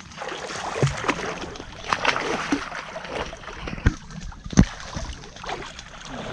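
River water splashing and sloshing as several people wade chest-deep, hauling a seine net through the water, with two sharp knocks a little past the middle.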